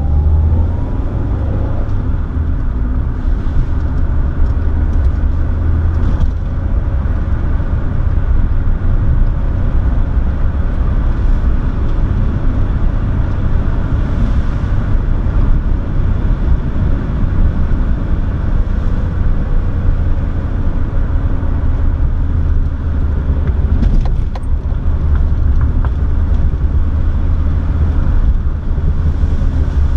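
A car driving, heard from inside the cabin: a steady low rumble of engine and tyres on the road, with the engine note rising briefly at the start.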